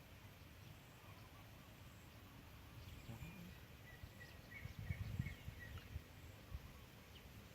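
Quiet outdoor background with a bird chirping faintly several times around the middle. A few low rumbling bumps on the microphone about five seconds in are the loudest sound.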